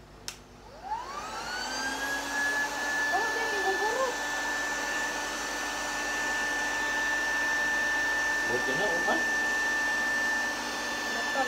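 Small electric air pump clicked on, its motor whine rising in pitch over about two seconds as it spins up, then running steadily while it blows air into a vinyl inflatable pool.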